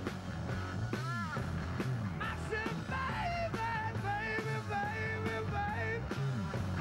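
Live rock band playing with a male lead singer. He sings high, wavering held notes with no clear words over the band's steady low notes.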